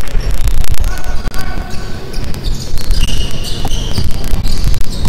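Live basketball play on a hardwood court: the ball bouncing as it is dribbled, with short high sneaker squeaks and players' footfalls, and distant voices in the gym.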